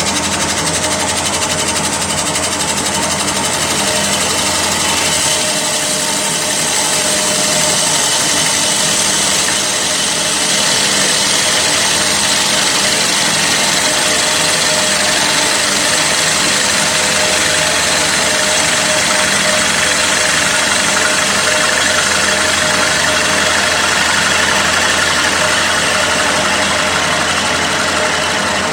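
CNC wood lathe running as it turns a large wooden bowl: a steady machine whine over a continuous hiss. A low hum drops out about five seconds in.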